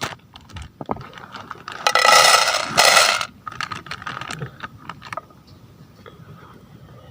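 Dry pasta rattling as it is handled and tipped into a pot to soak, with two loud bursts about two and three seconds in and light clicks and knocks around them.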